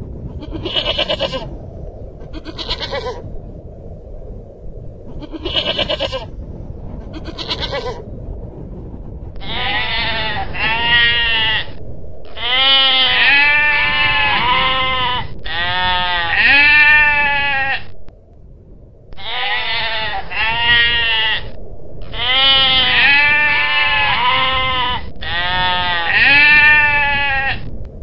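Long-tailed goral calling: first four short, high calls about two seconds apart, then longer bleating calls, each made of quick rising-and-falling pulses, repeated in several stretches with a brief break a little past the middle.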